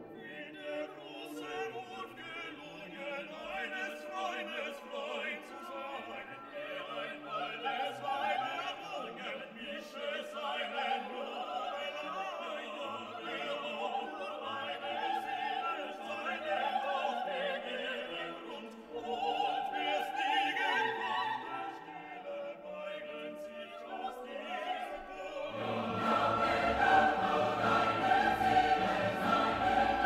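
Background classical music with operatic singing and orchestra, growing louder and fuller near the end.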